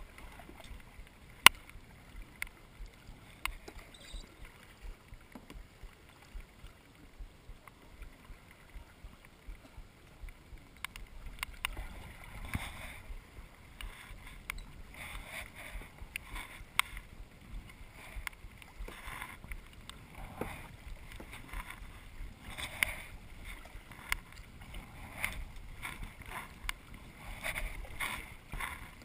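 Kayak paddling: paddle blades dipping and splashing in a regular rhythm from about halfway through, roughly one stroke every second or so. Before that, scattered sharp clicks and knocks over quiet water.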